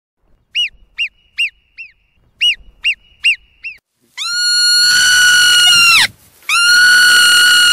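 Marmot calls: eight short, quick chirps over about three seconds, then two long whistles of nearly two seconds each, with a short break between them.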